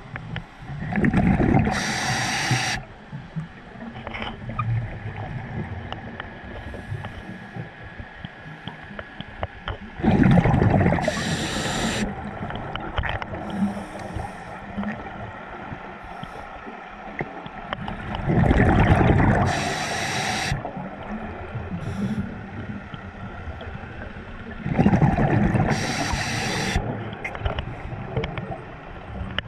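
A scuba diver breathing underwater: four bursts of exhaled air bubbling out, each about two seconds long and coming roughly every eight seconds, with quieter breathing noise between them.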